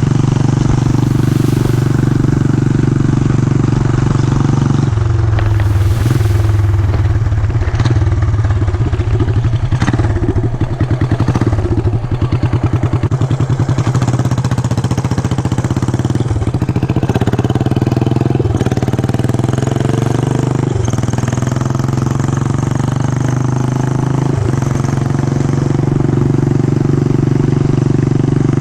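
Yamaha SR400's single-cylinder engine running under way. It runs steadily, then drops to a slower pulsing beat in which the separate firing strokes can be heard. It then climbs in pitch again several times, each climb cut by a brief drop about every two to four seconds, as when accelerating through the gears.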